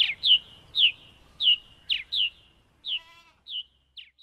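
A bird calling: a series of short, high, downward-slurred chirps, about two a second, growing fainter toward the end.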